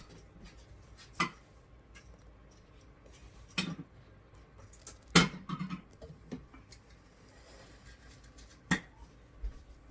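Kitchen utensils and cookware knocking and clinking as food is handled in a dish: a few sharp knocks spread out over several seconds, the loudest about five seconds in.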